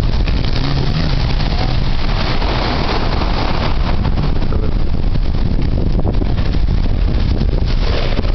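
Wind buffeting the microphone in a steady low rumble over the wash of waves breaking on a shingle beach.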